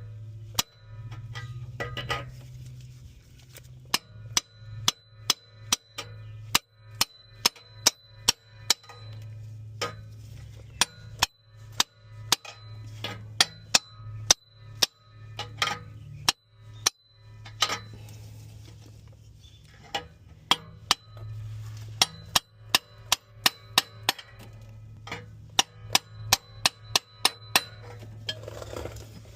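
Hammer blows on metal, knocking at a seized, broken oxygen sensor: dozens of sharp, ringing strikes in runs of several quick blows with short pauses between.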